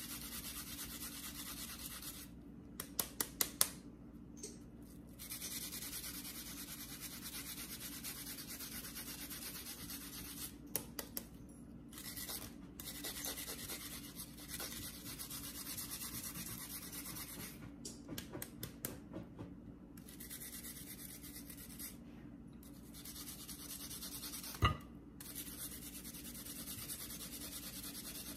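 Onion being juiced by hand: steady scraping and rubbing strokes, broken by a few short pauses with light clicks, and one sharp knock near the end.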